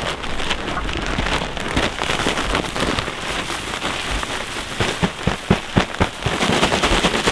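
Loose pine wood shavings pouring out of a large plastic bag in a dense, continuous rustling patter, with a few sharper crackles about five to six seconds in as the bag is tipped further.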